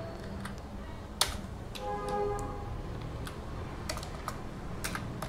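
Computer keyboard keys tapped in separate clicks as a shell command is typed, with a faint short tone about two seconds in.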